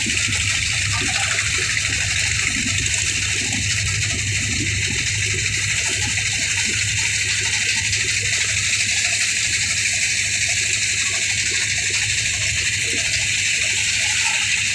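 Steady rush of water along the hull and spray of a wooden motorboat running at speed, with a constant low engine drone beneath it.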